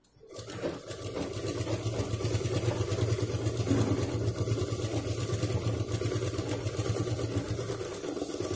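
Sewing machine running steadily at speed, stitching a seam through layered pouch fabric. It starts sharply at the beginning as a steady hum with rapid stitch ticking.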